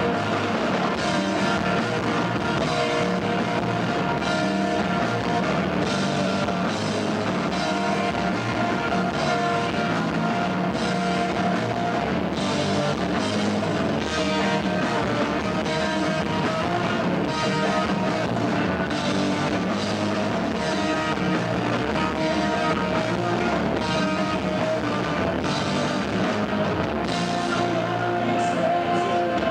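A live rock band playing loud and steady: electric guitars, bass and drum kit.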